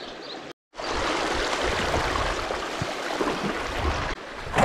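Creek water flowing in a steady rush, close to the microphone. The sound drops out for a moment about half a second in, then the rush comes in and eases off near the end.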